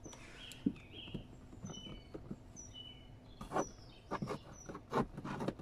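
Small birds chirping, a short falling chirp about once a second with a few higher whistled notes in between, while a cable is pressed into plastic trim, giving a cluster of clicks and rustles from about three and a half seconds in.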